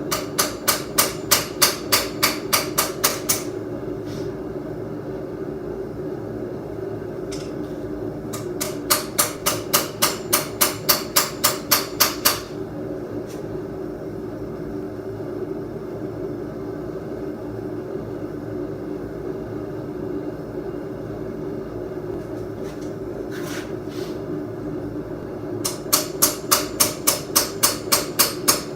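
Blacksmith's hammer striking hot steel on an anvil in three runs of steady blows, about three or four a second, with pauses between runs. A steady low noise runs underneath.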